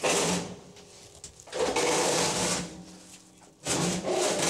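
A plastic bag crinkling as it is handled, in three separate bursts about a second long each, with quieter gaps between.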